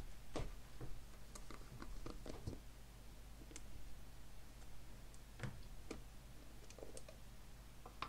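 Scattered light clicks and knocks of a plastic enclosure's snap-on lid being handled and pulled off, with one louder knock about five and a half seconds in, over a steady low microphone hum.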